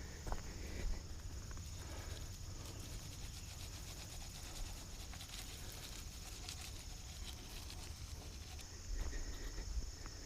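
A steady, high-pitched insect chorus, likely crickets, with a few scattered footsteps and a low rumble underneath.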